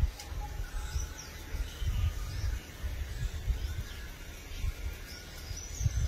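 Irregular low rumble of wind buffeting the microphone, with faint bird chirps scattered throughout.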